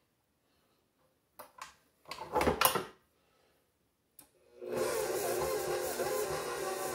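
A few clicks and a louder clatter as the stand mixer is handled, then about two-thirds of the way in its motor starts and runs steadily, creaming butter and sugar.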